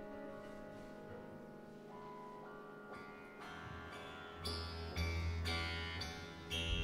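Steinway grand piano strings played by hand inside the instrument: sustained ringing string tones with new notes entering, then from about two-thirds of the way through several sharper plucked or struck attacks with a deep booming resonance.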